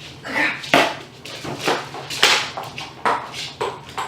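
Irregular knocks and thuds from a game of fetch on a hard floor, about five over four seconds, spaced unevenly.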